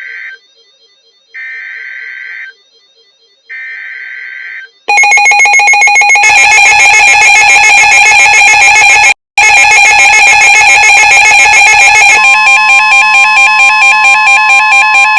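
Emergency Alert System broadcast: three screeching bursts of digital SAME data, each about a second long, then, about five seconds in, a very loud, distorted alert tone that warbles. The tone drops out for an instant partway through and is joined by a second steady tone about twelve seconds in, marking the start of a new flood warning alert.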